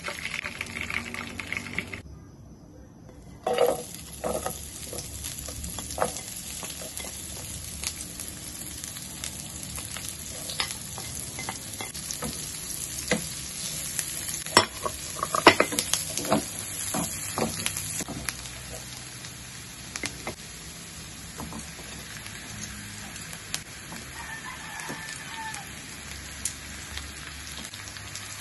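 Chopped onion and garlic sizzling as they fry in butter in a nonstick frying pan, with clicks and scrapes of a wooden spatula stirring them. The sound drops out briefly about two seconds in, then the sizzle runs on steadily.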